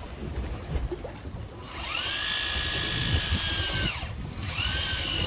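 Electric deep-drop fishing reel's motor winding in line under load. Its whine rises as it starts about two seconds in, holds steady for about two seconds and falls away as it stops, then starts again near the end. A low rumble runs underneath.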